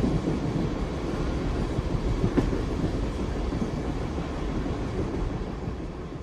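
Train rolling along the track: a steady, dense rumble of wheels on rails with a sharp click about two and a half seconds in, growing quieter near the end.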